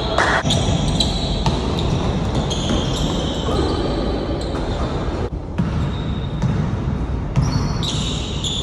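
A basketball bouncing on a court during play, over a steady background of noise.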